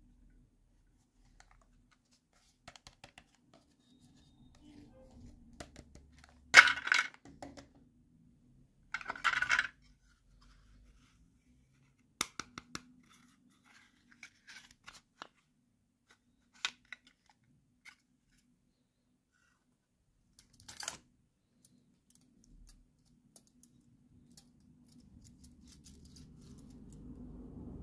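Small plastic and wire miniature toys handled by hand: scattered light clicks and knocks, with two louder scraping bursts about a third of the way in. A low hum builds near the end.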